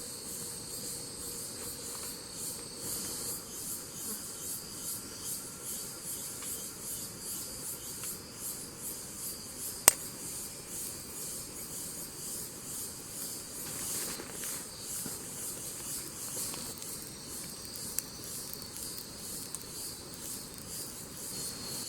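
Forest insects chirring in a steady, rapidly pulsing high-pitched chorus, with a single sharp click about ten seconds in.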